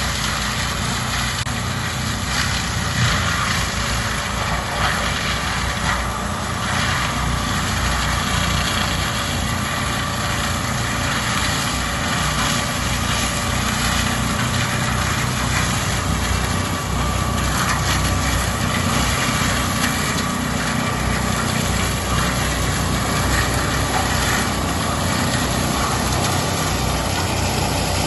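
Forestry mulcher shredding standing eucalyptus trees, its engine running steadily under load with dense grinding noise and brief surges as the head bites into the wood.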